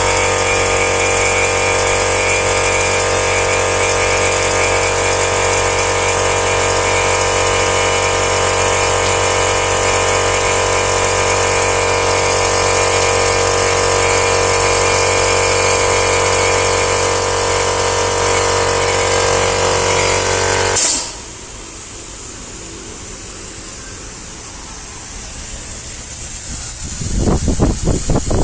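A steady machine hum made of many held tones with a high whine over it, cutting off abruptly about twenty seconds in; a rougher hiss follows, with a few low thumps near the end.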